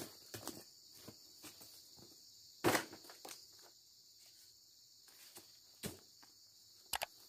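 Steady high chirring of insects, with scattered footsteps and short knocks as fresh oil palm fruit bunches are handled on a motorcycle's wooden rear carrier. The loudest knock comes about two and a half seconds in, and there are two more near the end.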